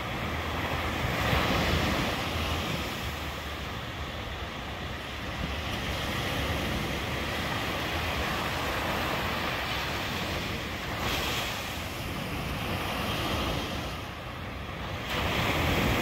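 Ocean surf on a sandy beach: small waves breaking and washing up the sand in a continuous rush. It swells about a second in, again near the middle, and is loudest near the end as a wave breaks.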